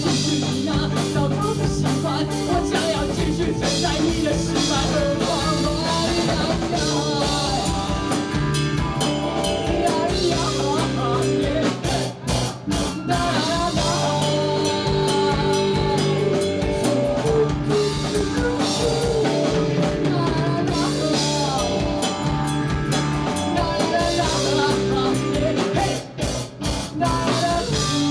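Rock band playing live: a man singing over electric guitar, bass guitar and a drum kit, with two brief breaks in the sound, one about twelve seconds in and one near the end.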